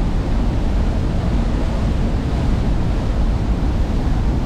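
Strong wind buffeting the microphone, a steady low rumble and rush.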